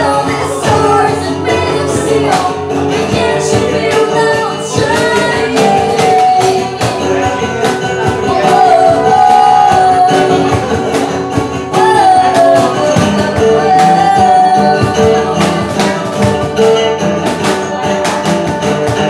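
Live acoustic band playing a song: a woman singing over strummed acoustic guitar and electric guitar, with hand percussion on a cajon keeping the beat.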